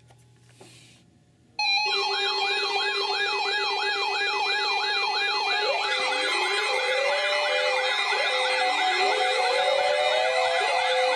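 Several electronic sirens sounding together, starting suddenly about a second and a half in: a fast yelp warbling about three times a second over steady tones, joined after a few seconds by slower rising wails and an on-off beeping tone.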